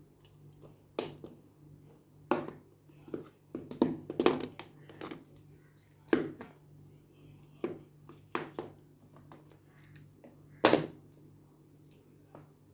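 Irregular sharp taps and clicks of hands handling a plastic toy and its packaging, about ten knocks spaced unevenly, over a steady low hum.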